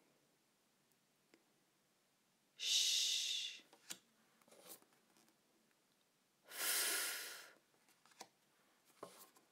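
A person voicing the phonics sounds 'shhh' and then 'fff': two long hisses of about a second each, some four seconds apart. Faint clicks of flashcards being handled fall between them.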